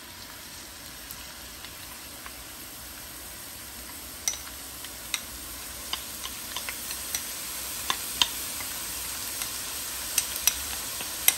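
Minced garlic frying in hot cooking oil in a wok: a steady sizzling hiss that slowly grows louder, with scattered sharp pops and crackles that come more often toward the end.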